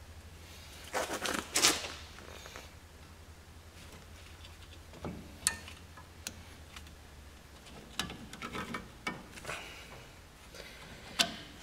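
Scattered small metallic clicks and scrapes as locking pliers hold a brake shoe hold-down spring cup while it is pressed onto its pin on a drum brake backing plate, over a faint low hum.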